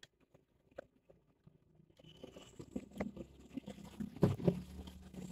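Light, scattered knocks and clicks from handling the laptop's parts while the SSD bracket is screwed into the casing. The first couple of seconds are nearly silent; the knocks cluster near the end.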